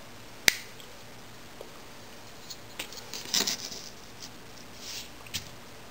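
Plastic IBM keyboard spacebars being handled and set down side by side: a sharp plastic click about half a second in, then scattered light taps and scrapes, with a short cluster of them around the middle.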